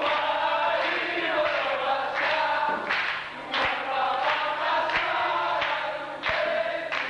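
A group of voices singing together in long held lines, with a few sharp hand claps now and then.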